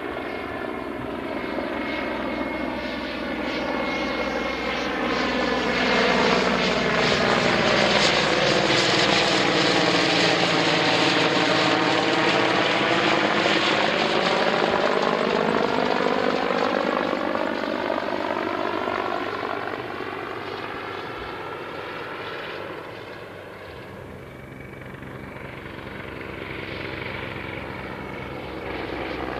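Mil Mi-24P attack helicopter flying close, its turbine whine and main-rotor noise a continuous roar. The roar grows over the first several seconds and stays loudest through the middle, with a sweeping, phasing tone that dips and then climbs. It eases off after about twenty seconds, then builds again near the end.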